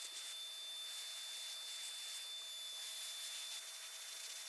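Handheld electric paint spray gun spraying filler primer onto metal jack parts: a steady hiss with a thin high whine.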